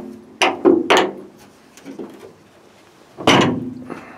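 Metal clunks of a 1951 Lanchester LD10's bonnet being unlatched and lifted open: two sharp knocks about half a second apart, a faint tap, then a louder clunk near the end that rings briefly.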